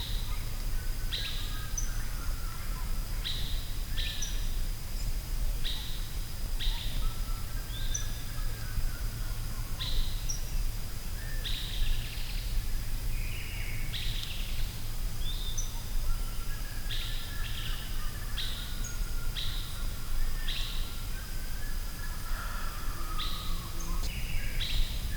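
Forest birds calling, with short high chirps repeating about once a second and softer warbling notes beneath, over a steady low rumble and a faint constant high tone.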